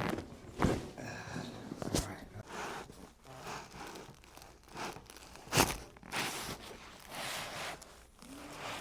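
A chiropractic adjustment: three sharp cracks, the loudest about halfway through, with soft rustling and shuffling of body and clothing against the treatment table between them.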